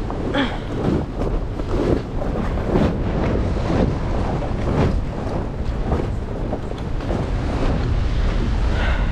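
Wind buffeting the microphone in gusts, a heavy rumbling rush, with the wash of the sea beneath it.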